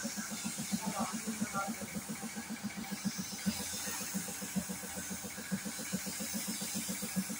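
Spray gun hissing as compressed air atomises paint onto a car door, over an air compressor running with a steady rapid thump, about seven beats a second.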